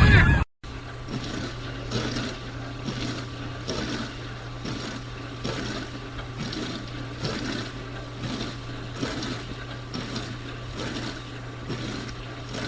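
Dishwasher running: a steady motor hum under water spraying and sloshing inside the tub, swelling in a regular swish about every two-thirds of a second. It starts about half a second in, after a short gap.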